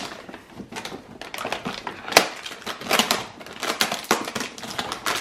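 Small toy packaging being handled and opened by hand: a run of irregular clicks and crackles, with a sharp click about two seconds in.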